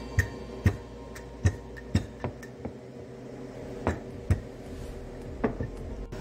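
Wooden rolling pin knocking and clacking against a countertop while puri dough is rolled out: about nine sharp, irregular knocks, roughly one every half second with a longer gap near the middle.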